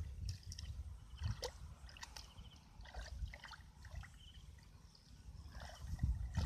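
Hands splashing and squelching in shallow muddy water while feeling for fish in the mud: small scattered splashes and drips.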